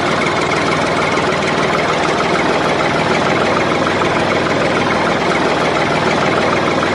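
Tractor engine sound effect: a diesel tractor engine idling steadily with a fine, regular knocking beat. It is dubbed over the toy tractors, not made by them.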